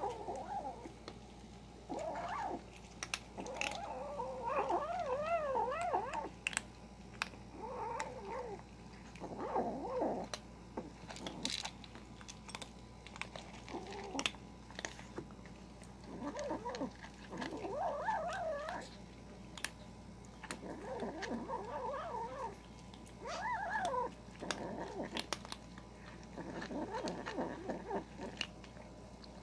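Kitten growling while it eats, in repeated wavering bouts of a second or two, a sign of a kitten guarding its food. Dry kibble crunches between the growls.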